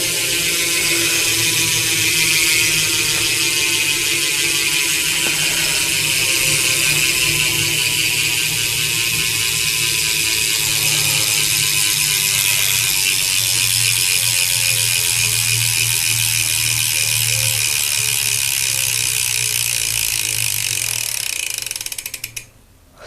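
Rear freewheel hub of a BMX bike (a Mission Function hub) ratcheting very loudly as the rear wheel spins freely, a continuous rapid buzz of pawl clicks that slows gradually. It cuts off suddenly near the end as the wheel stops.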